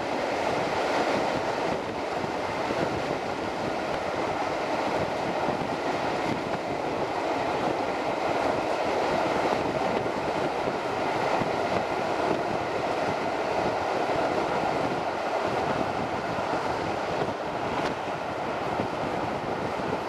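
Steady running noise of a diesel-hauled passenger train at speed, heard from an open carriage window: the rush of wheels on rail and passing air, with the two Class 67 locomotives working at the head.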